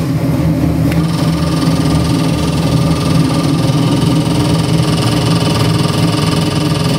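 Ford 427 Windsor V8 crate engine idling steadily at about 800 rpm on an engine dyno.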